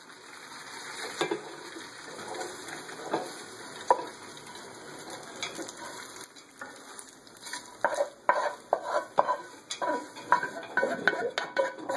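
Rigatoni sizzling in a hot frying pan, then slid and scraped out of the pan into a stainless steel pot. Clinks, knocks and scrapes of pasta and metal against the pot and pan come thick and fast over the last few seconds.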